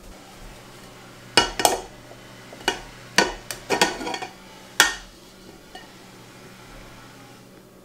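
Dishes clinking: a plate knocking against a large glass jar as it is pushed down onto pickles in syrup. About eight sharp clinks over a few seconds, then they stop.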